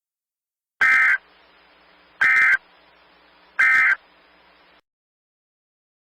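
Emergency Alert System end-of-message data bursts: three short, identical warbling SAME digital tone bursts about a second and a half apart, signalling the end of the alert. Faint hiss lies between the bursts.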